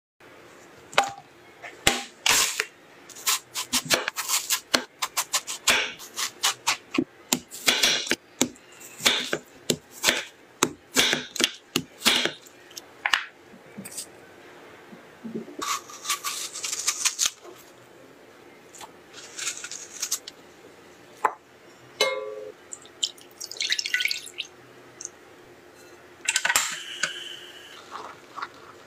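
Watermelon being cut on a wooden board: a quick run of sharp chops and knocks, followed by scattered clinks, scrapes and rustles as the pieces are handled, one clink ringing briefly about two-thirds of the way in.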